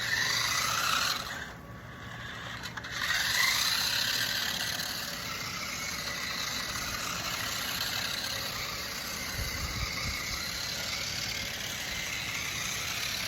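RC car motor whining as it revs up, with a rising whine near the start and again about three seconds in, then running steadily at speed.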